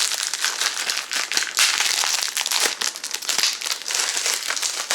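Plastic shrink-wrap being peeled off CD jewel cases and crumpled, a dense, continuous crinkling crackle.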